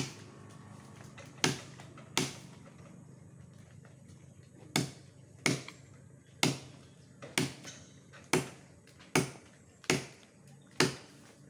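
Machete blade chopping into a santol tree branch: sharp, ringing blows, three at first, then after a pause of about two seconds a steady run of roughly one blow a second.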